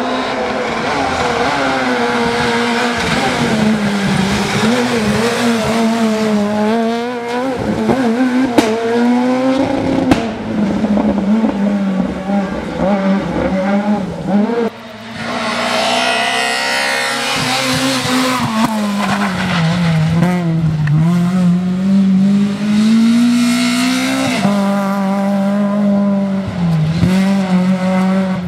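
Rally car engines revving hard at speed, the pitch climbing and dropping again and again through gear changes, with tyres squealing in the corners. There are a couple of sharp cracks about eight and ten seconds in, and a short break about halfway.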